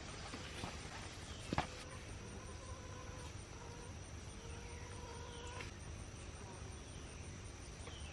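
Quiet outdoor garden ambience: a steady high insect drone, a few short falling chirps, and a single sharp knock about a second and a half in.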